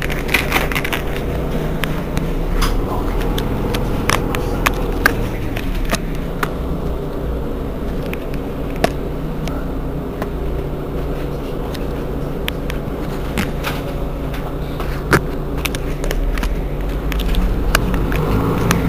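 Mercedes-Benz Citaro G C2 articulated city bus standing with its engine idling, a steady low hum with occasional light clicks; the hum swells slightly near the end.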